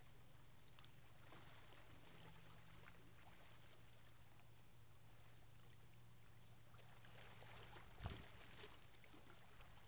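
Near silence, with the faint steady low drone of a distant freighter's engines carried across the water. A single soft thump comes about eight seconds in.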